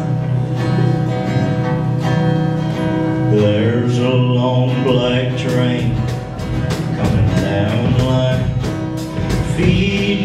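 Acoustic guitar strummed in a steady country rhythm, with a voice singing from about three and a half seconds in.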